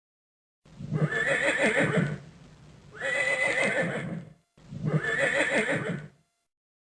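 Horse whinnying three times, each call about a second and a half long.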